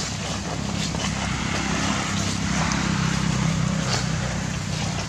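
A low engine hum, a little louder in the middle, over a steady noisy background.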